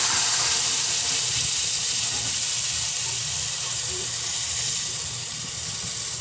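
Coconut milk sizzling with a steady hiss as it is poured into a hot wok, slowly dying down.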